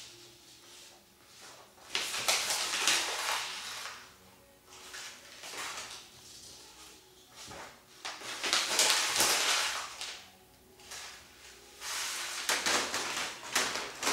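Sheets of white paper being handled and crumpled by hand, in three loud stretches of crackling rustle, each a second or two long, with quieter rustling between.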